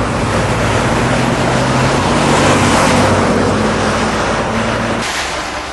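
Street traffic noise: a car driving past, a steady engine hum under a rush of tyre and road noise, fading near the end.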